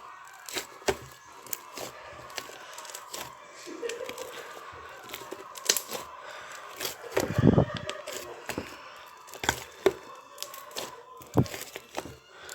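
Slime being squished and kneaded by hand: irregular sharp clicks and pops, with a couple of heavier squelching thuds about seven and eleven seconds in.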